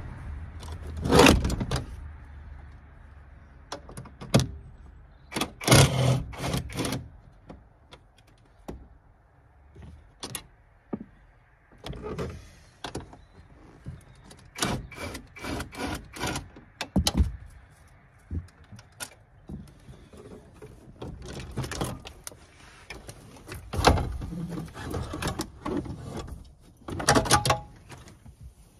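Tools working on the bolts of a Ford Transit Mk7 seat, and the seat being freed from its base: a string of sharp metallic clicks and clunks that come in clusters, with quieter gaps between.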